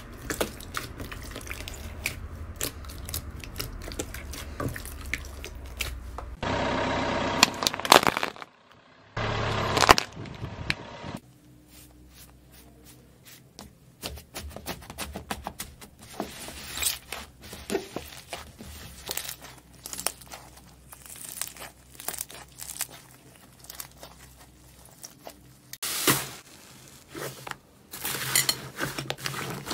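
Hands squishing, pressing and stretching soft slime: a dense run of small sticky clicks, pops and tearing crackles. The sound changes in loudness and tone at cuts between clips, with louder stretches about a third of the way in and near the end.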